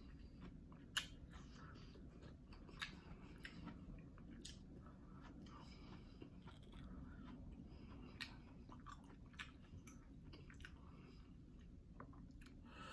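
Faint chewing of mussels, with soft mouth sounds and scattered sharp clicks from mussel shells being handled.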